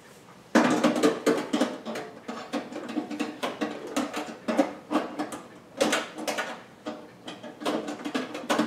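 Metal parts of a Behmor 1600 Plus coffee roaster clicking and clattering as they are fitted back into the roaster's chamber: a quick, uneven run of knocks and rattles starting about half a second in.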